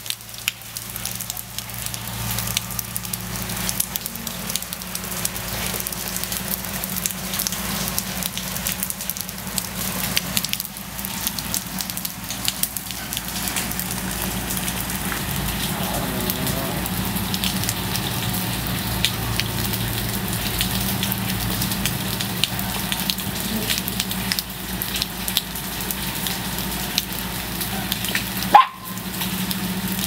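Steady rain falling on wet pavement and puddles, a dense hiss with many separate drops ticking. Near the end there is one sharp click followed by a brief break in the sound.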